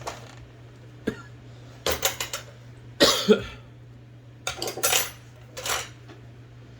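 Metal clicks and clinks of hand tools and parts being handled in an IBM Selectric II typewriter mechanism during disassembly. They come in several short clusters, the loudest about three seconds in, over a low steady hum.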